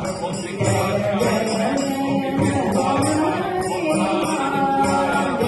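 Hindu devotional music: a chanted, mantra-like song over a steady jingling percussion beat. It cuts off suddenly at the end.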